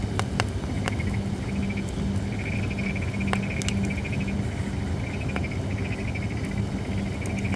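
Holly firewood burning in a fire pit, crackling with several sharp pops, over a steady background of repeated trilling animal calls.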